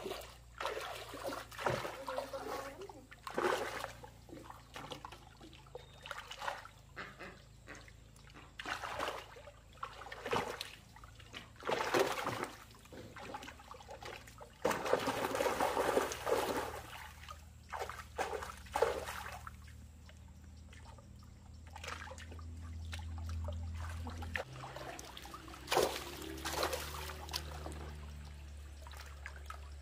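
Water splashing and trickling in irregular bursts, the longest about halfway through, over a low steady hum that grows louder in the second half.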